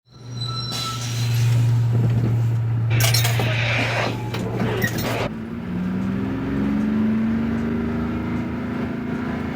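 City bus engine idling with a steady low hum and a brief high clink at the start. Compressed air hisses from the air brakes twice, about three and five seconds in, then the engine note rises as the bus pulls away.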